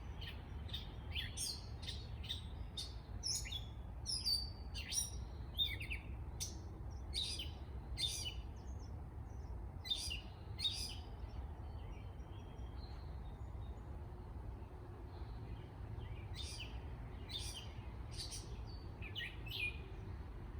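Songbirds chirping in short, quick calls, dense for the first ten seconds or so, thinning out in the middle, then picking up again near the end, over a low steady rumble.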